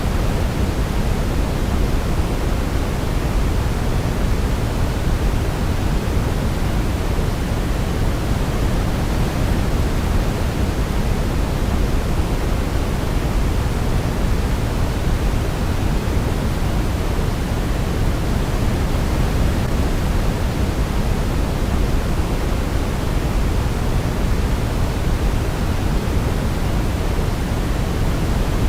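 Steady, unchanging sleep-aid noise: an even hiss, deepest and strongest in the low end, with no melody or beat over it.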